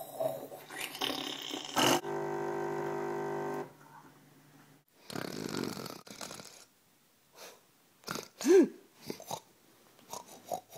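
A person imitating snoring, voicing a sleeping stuffed dog: several separate snores with pauses between them, one held and buzzing and another breathy.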